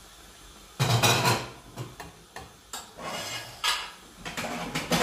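A spoon stirring soup in a stainless steel pot, knocking and scraping against the pot in irregular clatters that start about a second in.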